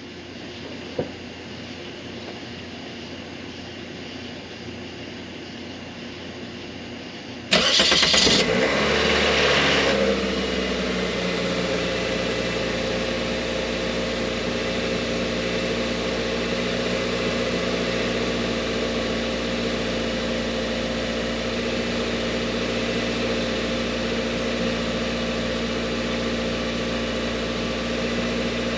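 2004 Toyota Corolla's 1.8-litre four-cylinder engine started after a fresh oil change: about seven seconds in, a brief crank catches and runs fast for a couple of seconds, then settles to a steady idle.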